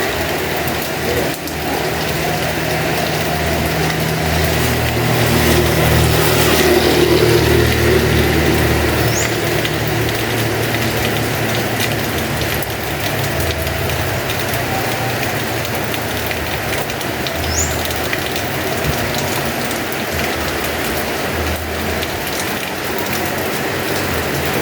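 Heavy rain falling steadily in a dense hiss, with a low, uneven rumble underneath and two brief high chirps in the middle.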